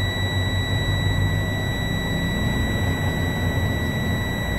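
Truck diesel engine running in the cab, its revs brought up from idle to about 1200 rpm to build air pressure for a compressor test. Over it the low-air warning buzzer sounds one steady high tone, because air pressure is still below the warning point.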